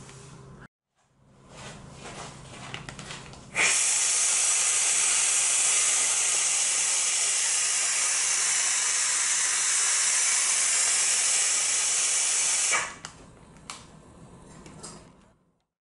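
Compressed-air vacuum ejector of a Convum SGP sponge vacuum gripper hissing steadily while the pad holds a bag by suction. The hiss starts abruptly a few seconds in and cuts off sharply near the end, with fainter mechanical noise and a low hum before and after it.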